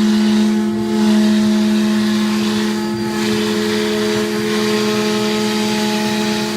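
CNC router spindle running steadily while its bit cuts 16 mm MDF: a constant whine with a hiss of cutting over it that swells and eases every few seconds, with small shifts in pitch as the load changes.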